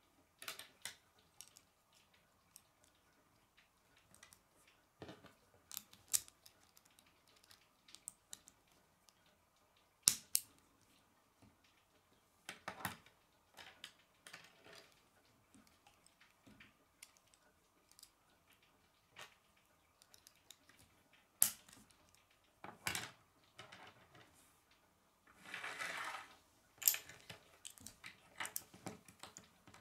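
Plastic K'nex rods and connectors clicking and snapping together, and pieces tapped and set down on a wooden tabletop: scattered sharp clicks and taps, with a brief rustle of handled pieces near the end.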